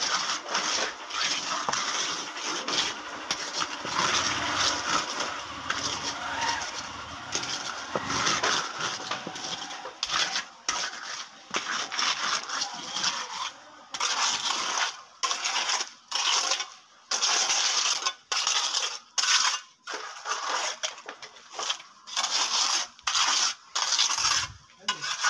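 Wet concrete being scraped and smoothed by hand, a gritty rasping that runs on steadily and then, about halfway through, breaks into short repeated strokes about one or two a second.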